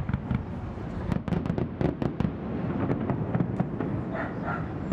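Fireworks going off in the distance: many sharp bangs and cracks in quick succession over a continuous low rumble.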